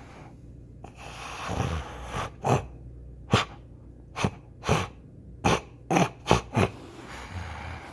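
Rottweiler snoring: a long noisy breath in, then a run of about nine short, sharp snores over the next few seconds, and a softer breath near the end.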